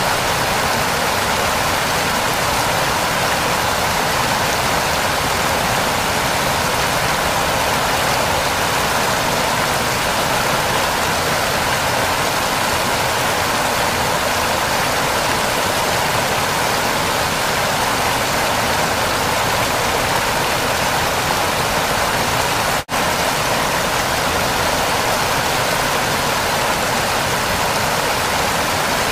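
Waterfall rushing steadily, a dense even roar of falling water. It cuts out for an instant about 23 seconds in, then carries on unchanged.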